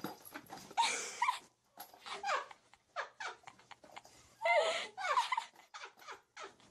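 A pet animal's vocal cries: a series of short calls with pauses between, several sliding down in pitch, loudest about a second in and again about four and a half seconds in.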